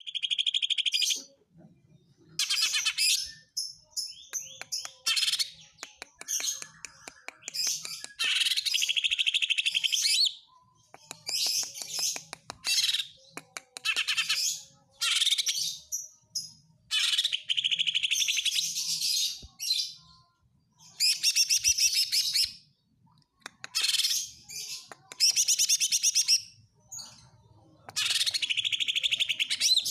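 A green leafbird (cucak ijo) singing its 'tembakan': loud, rapid bursts of varied high chirps and trills. The bursts last one to two seconds each, with short pauses between them and fast clicking runs mixed in.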